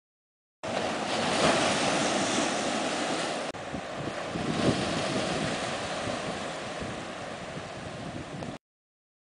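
Ocean waves surging and splashing against black lava rocks, with wind buffeting the microphone. It starts abruptly about half a second in, breaks off for an instant around three and a half seconds, swells again with a splash soon after, and cuts off abruptly near the end.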